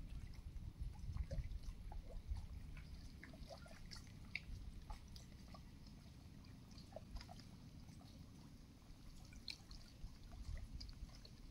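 Faint water sounds around a kayak being paddled on a calm lake: scattered drips and small splashes over a low, steady rumble.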